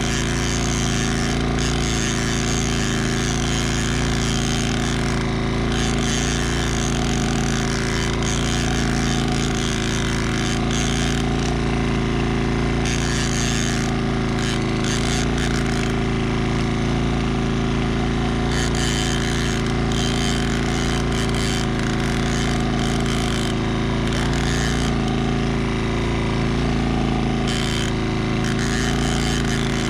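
Small outboard motor running steadily at an even speed.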